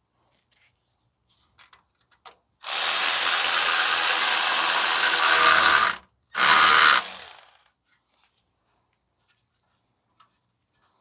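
Cordless power tool running in two bursts, about three and a half seconds and then about one second, while tightening a clamp around a loose exhaust heat shield to stop it rattling.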